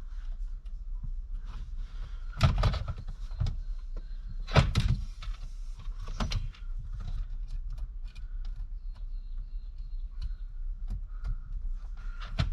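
Metal shifter linkage being worked into place by hand: scattered light clicks and three louder clunks as the pin and clip go in, the loudest about two and a half and four and a half seconds in.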